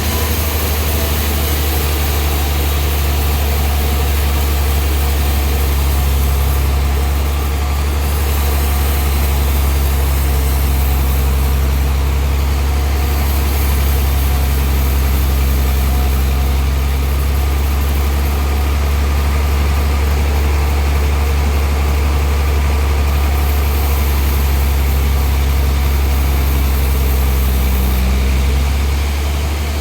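Sawmill machinery running steadily: a strong low engine hum with a wide hiss above it.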